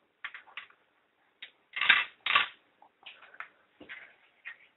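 Irregular plastic clicks and knocks of a LEGO gumball machine's mechanism and gumballs being handled, with two louder knocks about two seconds in.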